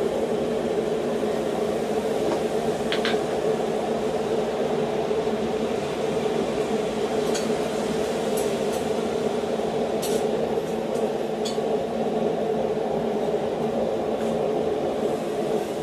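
Blacksmith's forge running with a steady hum, with a few faint light clinks of metal and no hammer blows.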